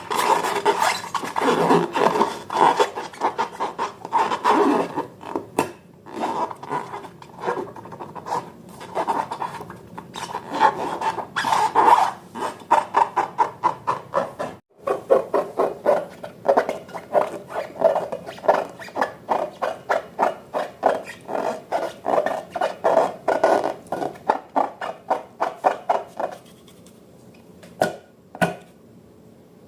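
Slime being stirred and scraped in a bowl with a utensil: quick repeated scraping strokes, a few a second. The stirring stops near the end, followed by two short knocks.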